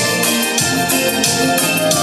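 Instrumental introduction of a song: keyboard chords over a steady beat, with no singing yet.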